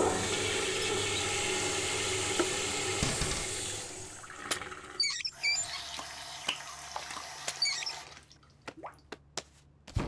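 Toilet flushing with a loud rush of water for about four seconds, then a tap running into a sink, with a couple of short squeaks from the tap; the water stops about eight seconds in.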